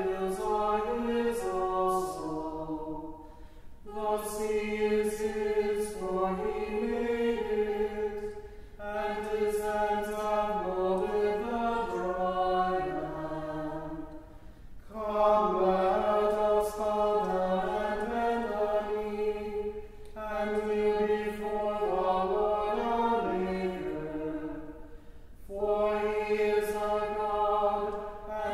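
A choir singing a chant, several voices in harmony. It goes in phrases of about five seconds, each broken off by a short breath.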